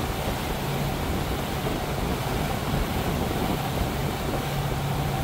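Regal motorboat running underway: a steady engine hum under a rush of wind and water.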